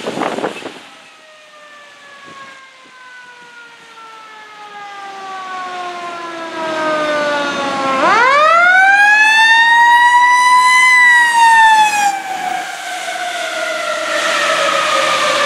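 Fire engine siren winding down slowly, then winding up sharply about halfway through, holding near its peak for a few seconds and coasting down again, growing louder as the truck approaches.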